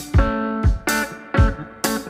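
Background music: pitched melodic notes over a steady drum beat.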